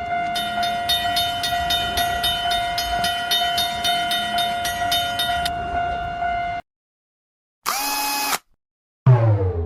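Cartoon train-horn sound effect: a steady held tone with a fast repeated ringing over it, cutting off about six and a half seconds in. After a short gap comes a brief whistle blip, then a loud sound sliding down in pitch near the end.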